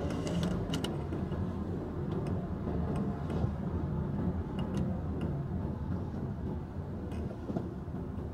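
Inside a slowly moving car's cabin: steady low engine and road rumble, with a few scattered light clicks.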